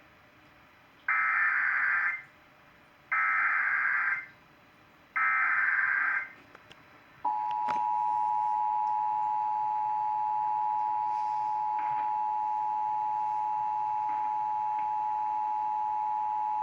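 Emergency Alert System tones: three one-second bursts of digital SAME header data a second apart, then about seven seconds in the steady two-tone EAS attention signal (853 and 960 Hz) starts and holds.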